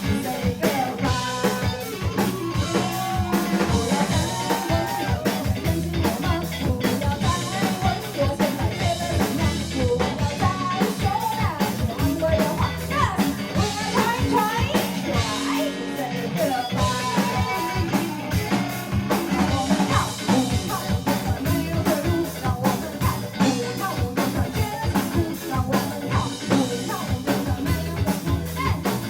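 Rock band playing live: a singer over guitar and a drum kit keeping a steady beat.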